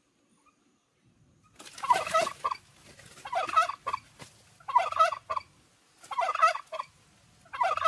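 A turkey gobbling: five gobbles in a row, about one every second and a half, starting a second and a half in.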